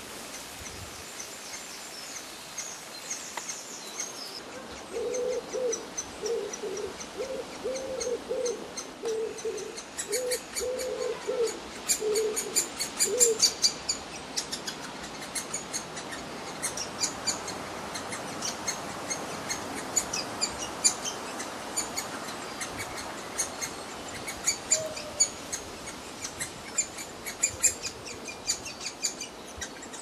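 Great spotted woodpecker chick begging from the nest hole: rapid, repeated high-pitched calls that keep on throughout. From about five seconds in until about thirteen seconds, another bird gives a run of low, evenly pitched notes.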